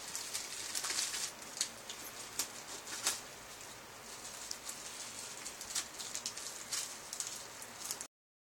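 Crinkling and rustling of packaging being torn open and unwrapped by hand, with irregular sharp crackles. The sound cuts off abruptly near the end.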